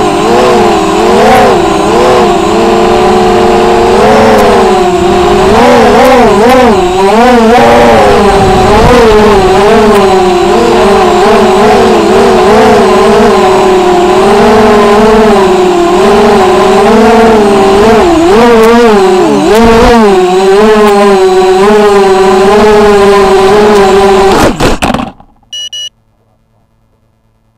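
Brushless motors and propellers of an FPV racing quadcopter, heard through its onboard camera: a loud buzzing whine whose pitch wavers up and down constantly with the throttle. It cuts off suddenly about 25 seconds in as the quad lands, followed by a brief beep.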